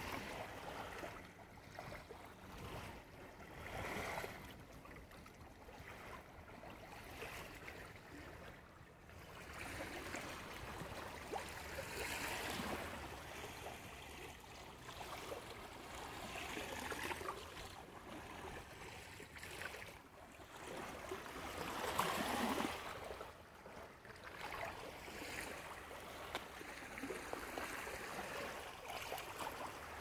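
Small waves lapping and washing on a sandy lakeshore, a soft rush that swells and eases every few seconds.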